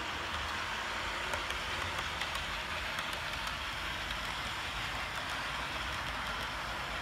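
OO gauge model train running on the layout track, its Hornby Mark 2E coaches rolling past. There is a steady hiss of wheels on the rails with faint light clicks.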